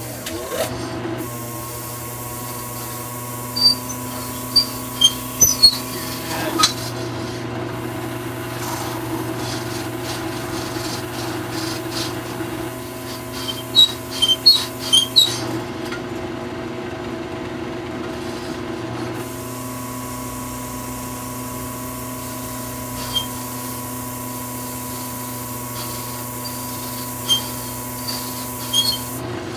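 A drill press runs with a sanding pad in its chuck, rubbing and scraping against the flat face of an aluminium amplifier heatsink as the block is moved about beneath it, over a steady motor hum. Short sharp clicks come in clusters three times, a few seconds in, around the middle and near the end. The face is being flattened for the power transistors to sit on.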